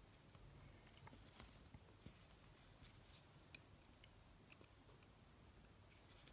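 Near silence, with faint scattered clicks and rustles of a metal crochet hook working stitches in cotton yarn. The clearest click comes about three and a half seconds in.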